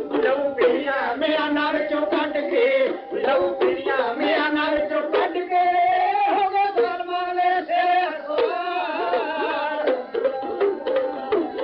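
Traditional Punjabi folk music: rapid hand-drum strokes under a wavering melody line, with a stretch of singing in the middle.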